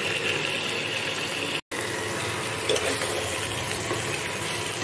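Raw chicken pieces sizzling in hot oil with fried onions and ginger-garlic masala in a pan, stirred with a spatula: a steady frying hiss. It cuts out for an instant about one and a half seconds in.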